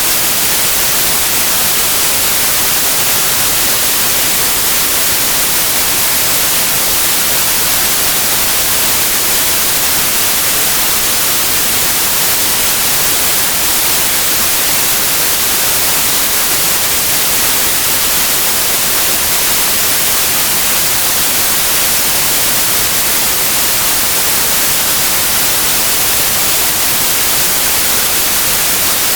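Synthetic white noise for lulling a baby to sleep: a steady, even hiss, loud and unchanging, with the most energy in the high frequencies and no melody or rhythm.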